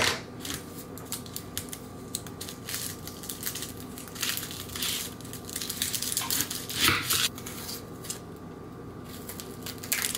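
A knife cutting through a red onion on a wooden cutting board, and the onion's dry papery skin being peeled off by hand: irregular crackling and crunching, with a few louder crunches midway.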